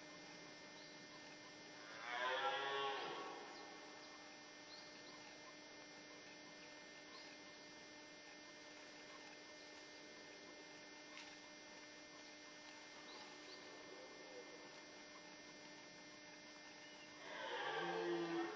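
Red deer stag roaring in the rut, two roars of about a second each: one about two seconds in and another near the end. A faint steady hum lies underneath.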